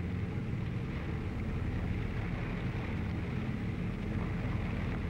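Landing craft's engine running steadily as the boat moves along the river: a low, even drone that does not change.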